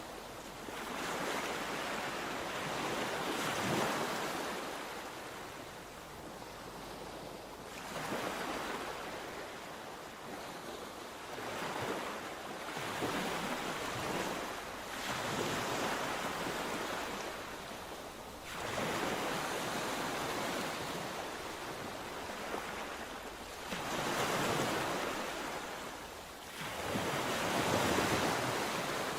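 Sea waves breaking and washing on the shore, surging in every three to four seconds and falling back, with some wind on the microphone.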